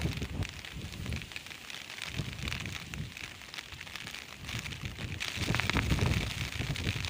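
Wind buffeting the microphone in uneven gusts, strongest near the end, over a light crackling rustle.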